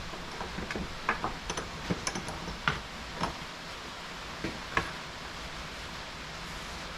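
Scattered light clicks and taps, a dozen or so at irregular intervals, from hands handling tools, screws and the part between driving self-tapping screws; no drill or driver is running.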